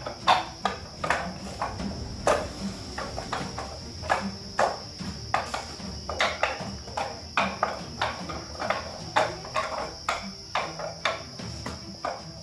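Rapid, irregular wooden knocks, about two a second, as forearms and hands strike the arms of a wing chun wooden dummy, over a steady high-pitched trill.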